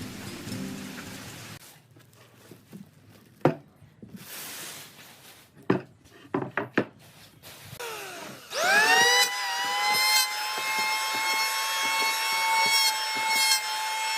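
A few sharp knocks, then a power tool's electric motor spins up with a quickly rising whine and runs at a steady pitch.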